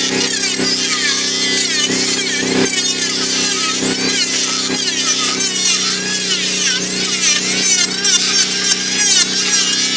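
Modern M2920 electric hand planer running steadily, its blades shaving a rough wooden beam.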